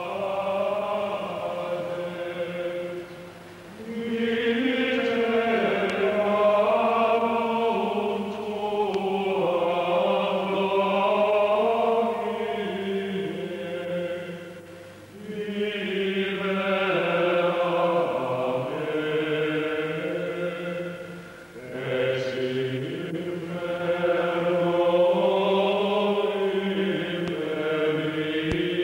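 Voices singing a slow chant in long held phrases, breaking off briefly three or four times between phrases.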